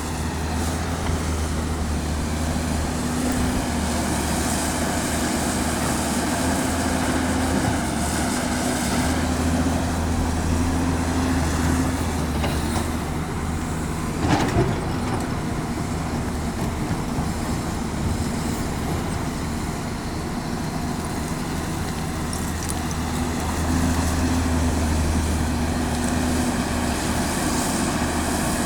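Caterpillar 329D L excavator's diesel engine running under working load, its level swelling and easing as it digs and swings. A sharp knock sounds about halfway through.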